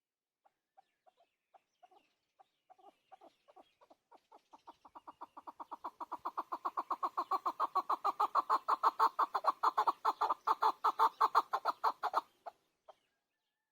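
Chukar partridge giving its rally call: a series of clucking 'chuk' notes that start sparse and hesitant, then speed up to about six notes a second and grow steadily louder before breaking off near the end.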